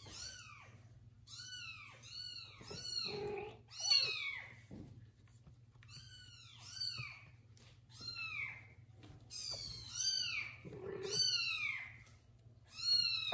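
Kittens mewing over and over, high-pitched cries that each rise and fall, with a couple of lower, deeper cries among them.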